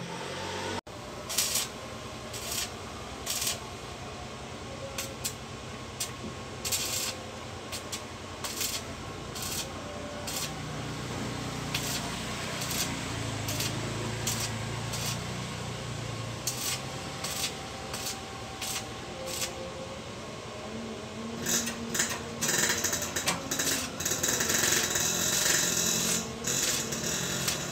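Electric arc welding on a pickup's sheet-steel body panel. Short crackling tack welds come in brief bursts about once a second, and from about three-quarters of the way through they give way to longer, denser runs of crackling and sizzling.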